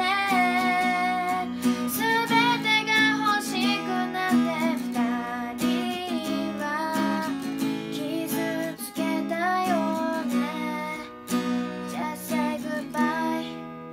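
Acoustic guitar strummed in chords, with a girl's singing voice carrying the melody over it. The playing dies away near the end.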